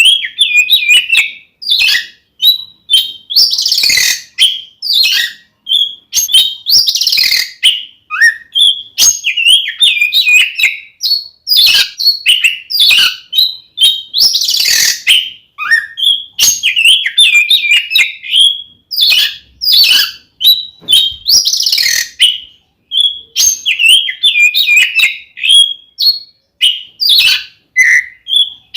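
Oriental magpie-robin (kacer) singing loudly and without pause: rapid, varied whistled phrases broken every few seconds by harsh rasping notes. This is the open, aggressive fighting song of a male in full voice.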